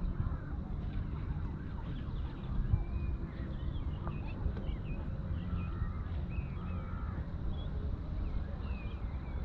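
Many birds calling in short chirps and squeaks over a steady low rumble of wind on the microphone.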